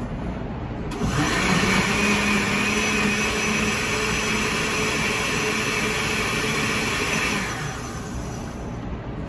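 Countertop blender pureeing green tomatillo and jalapeño salsa: the motor comes up to speed about a second in, runs steadily for about six seconds, then shuts off.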